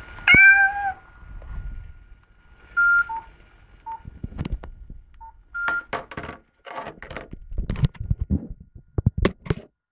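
A short, meow-like pitched sound with a slight glide, opening with a click, from a Nokia 515 mobile phone. It is followed by five short keypad beeps at two pitches, then many sharp clicks and knocks of the phone being handled.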